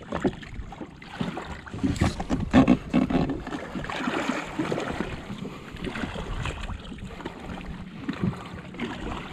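Wind buffeting the microphone and water lapping against a jetski's hull, with irregular knocks and rustles from an angler working a spinning rod and reel.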